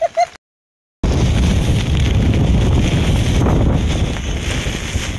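Wind buffeting the microphone: a steady, loud rumble and hiss that starts about a second in, after a brief gap of silence.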